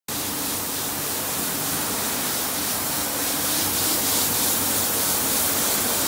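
RWM78 automatic carpet washing machine running: a steady hiss of spraying water over a faint low motor hum.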